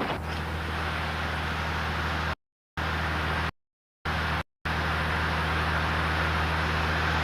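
Fire engine's pump running steadily, charging a fire hose with water: a low, even engine hum under a rushing hiss. The sound cuts out completely three times in the middle.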